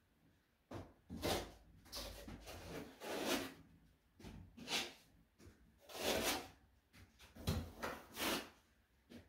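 Packaging being handled while statue parts are unpacked from a box: a series of irregular rustles and scrapes.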